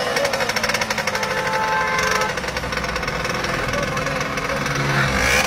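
Small engine on a homemade wooden-framed cart running with a fast, rough knocking beat.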